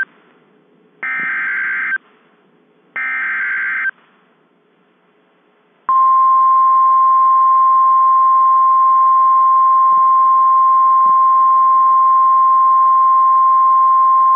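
Emergency alert signalling: two harsh, warbling, one-second bursts of SAME header data, about two seconds apart, that encode the severe thunderstorm warning. About six seconds in, a long, loud, single-pitch NOAA Weather Radio 1050 Hz attention tone starts and holds steady, announcing the spoken warning.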